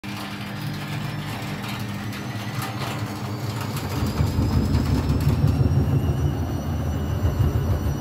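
Whirlpool front-loading washing machine drum spinning up with an unbalanced load, the motor's faint whine rising in pitch over a low hum, with a few knocks early on. About four seconds in, the low rumble grows louder and rougher as the out-of-balance spin speeds up.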